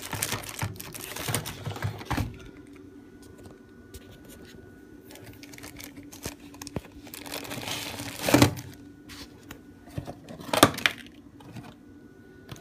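Clear plastic film wrapping crinkling and cardboard rubbing as a plastic-wrapped burger press is pulled from its box and handled: rustling through the first two seconds, then two short louder bursts later on.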